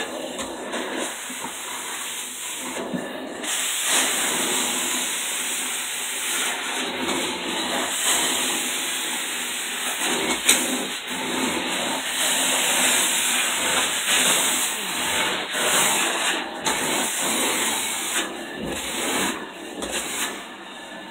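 Carpet-cleaning extractor's hand tool drawn over carpeted stair treads: a steady rushing hiss of suction and spray, its highest hiss dropping out and coming back again and again.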